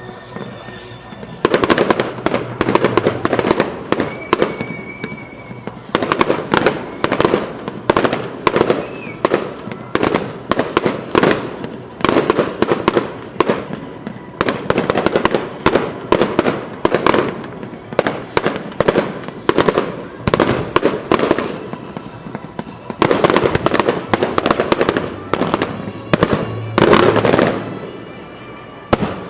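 Fireworks shells bursting in a rapid barrage, many sharp bangs in quick clusters with brief lulls between, with music playing underneath.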